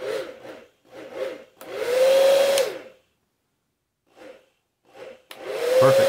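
Turbo Power Twin Turbo 3200 blow dryer switched on and off repeatedly on its newly replaced power switch: short blips of blowing air, a run of about a second and a half whose motor whine rises and then falls away, a second of quiet, two more quick blips, then it runs again from about five seconds in. The new switch is working, starting and stopping the dryer on command.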